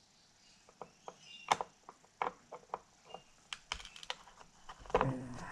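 Irregular small clicks and taps of a screwdriver working a long, thin screw out of the board over a Technics SL-1200 MK2 turntable's main motor.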